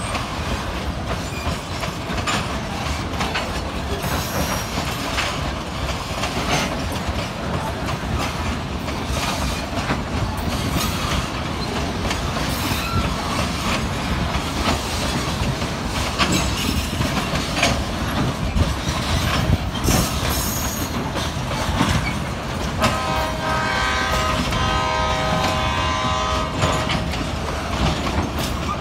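Tank cars of a freight train rolling past, with steady wheel rumble and repeated clacks over the rail joints. About two-thirds of the way through, the GE C23CM locomotive's Nathan K5LA five-chime air horn sounds one chord for about four seconds.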